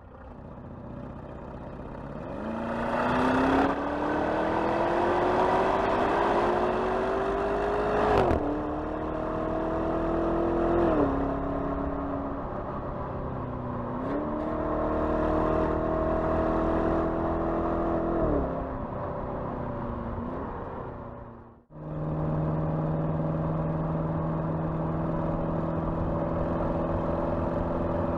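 Porsche Cayenne twin-turbo V8 accelerating hard, its pitch climbing in each gear and dropping sharply at each upshift, three pulls in all. After an abrupt break it holds a steady engine note.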